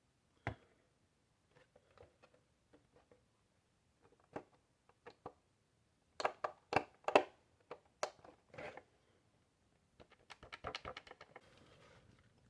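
Hard plastic toy housing being handled and taken apart: scattered clicks and knocks, a few louder knocks about halfway through and a quick run of light clicks near the end.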